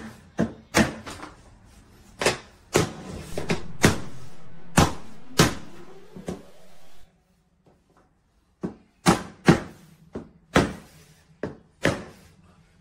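Hammer knocking on a plastic tapping block to seat vinyl floor planks: about a dozen sharp knocks at an uneven pace. A steady noise runs under the knocks for a few seconds, then there is a pause of about a second and a half before the knocking starts again.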